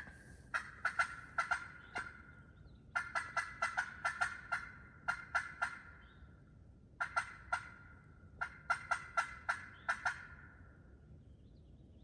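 Pot-style friction turkey call (striker on slate or glass over slate) run close by in five short series of hen yelps, each note starting with a sharp scratch; there is a pause of about a second between series.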